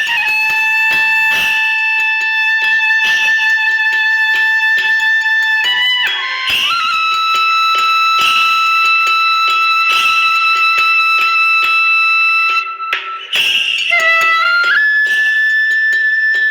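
Background music: long held wind-like notes that shift to a new pitch about six seconds in and again near the end, over a busy clicking rhythm.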